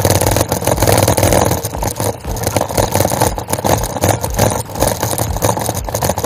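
Bicycle rolling over cobblestone paving: a loud, steady rattle made of many rapid knocks.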